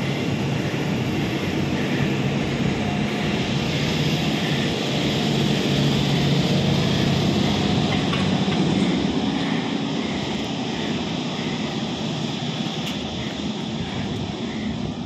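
ÖBB class 1142 and 1144 electric locomotives pulling a freight train out of a station at close range: a steady low hum from the locomotives with wheel and rail noise as they and the wagons roll past, loudest about six seconds in and easing a little after.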